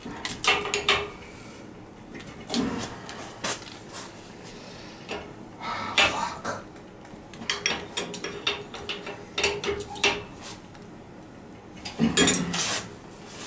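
Irregular metallic clinks and scrapes of a wrench working the bolts on a boiler's tankless-coil cover plate, whose gasket is leaking. The loudest clatter comes near the end.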